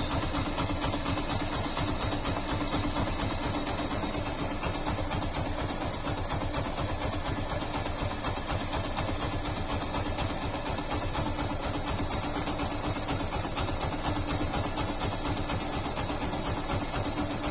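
Yamaha FZ-series single-cylinder motorcycle engine idling steadily, with a fast, even pulsing.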